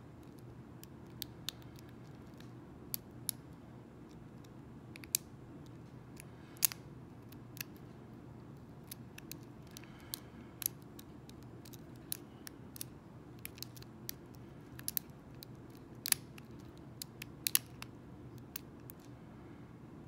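Lock pick and tension wrench working the pins of an Arrow-keyway pin-tumbler challenge lock during single-pin picking: irregular small metallic clicks, sometimes several close together, sometimes seconds apart, over a steady low hum.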